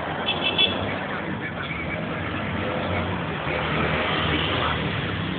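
Steady vehicle noise heard from inside a car.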